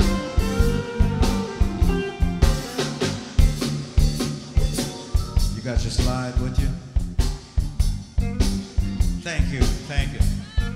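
Live blues band playing: drum kit, electric bass and electric guitars, with a lead guitar line of bent, wavering notes in the second half.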